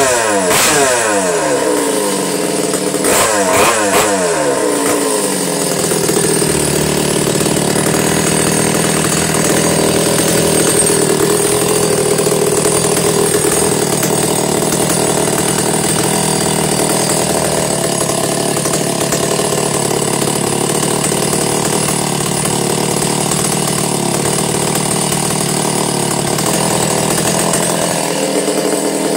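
Stihl 066 two-stroke chainsaw with a homemade exhaust pipe and baffle, running. The revs drop back twice in the first few seconds, then it idles steadily.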